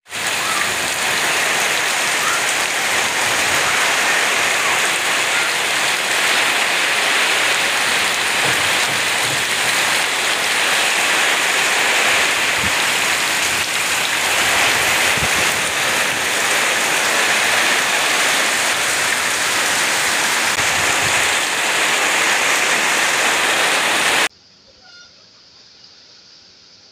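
Heavy rain falling steadily on trees and foliage, a dense, even hiss. It cuts off abruptly near the end, leaving only a faint background.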